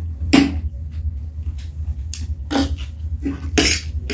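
Close-miked eating: chewing a mouthful of noodles, with about five short, sharp mouth and cutlery sounds. A steady low hum begins right at the start and continues underneath.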